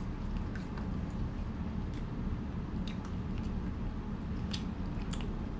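A person eating noodles from a takeout container: chewing, with a few short sharp clicks of a fork against the container, over a steady low hum.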